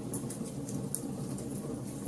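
Campfire of burning logs crackling: scattered small sharp pops and snaps over a steady low rush of the flames.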